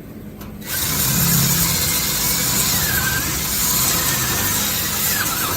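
MIG welder running a weld on the truck's sheet-steel brace: a steady sizzle that starts abruptly about a second in and cuts off right at the end.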